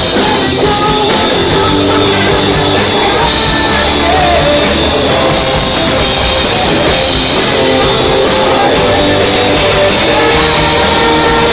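Loud, continuous rock music: a band with electric guitar, drums and singing.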